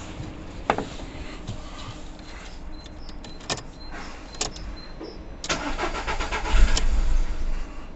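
A few sharp clicks, then from about five and a half seconds in the starter cranks the Seat Ibiza's 1.4 CGGB four-cylinder petrol engine and it fires. It starts only with the injector supply fed through a jumper wire, the sign of a broken power wire to the injectors.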